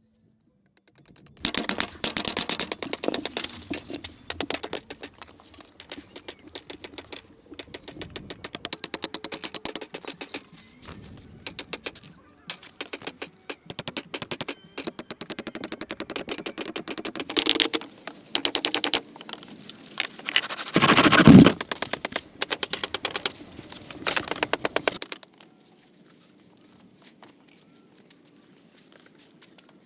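Rapid run of sharp knocks and taps on bamboo, many a second, from hammering and chopping bamboo strips on a bamboo frame. It is loudest about 21 s in and stops near 25 s, leaving only faint sounds.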